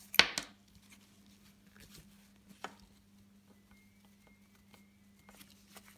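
Handling noise from a plastic embroidery hoop and canvas being moved and touched: one sharp knock and rustle just after the start, a smaller click about two and a half seconds in, then faint rustles of satin ribbon being adjusted over a low steady hum.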